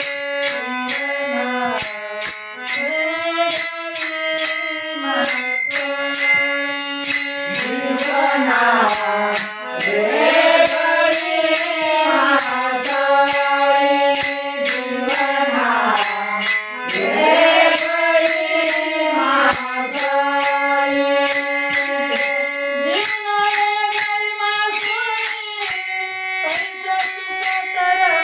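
Abhang devotional music: steady held tones under bright metallic percussion beating about three times a second. Through the middle, a voice sings bending, melismatic phrases.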